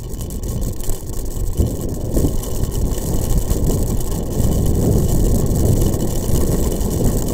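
Steady low rumble of a ride along a rough gravel track, with wind buffeting the microphone, growing a little louder after the first second or so.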